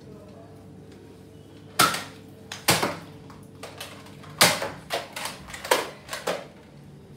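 Nerf foam-dart blaster being primed and fired: a series of sharp plastic clacks and snaps, about six loud ones, starting about two seconds in and coming less than a second apart.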